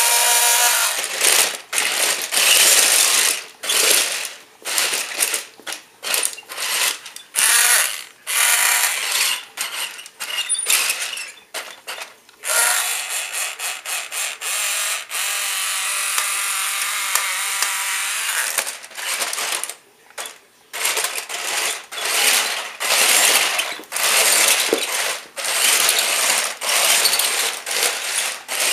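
Tyco Monster Traxx RC toy's electric drive motors and plastic tracks running on the high-speed setting, in many short stop-start bursts as the throttle is blipped, with one longer steady run around the middle.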